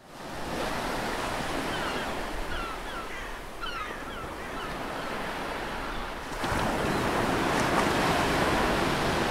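Sea surf and wind ambience, a steady rushing noise that steps up louder about six seconds in. A few short, high curving calls sound between about two and four seconds in.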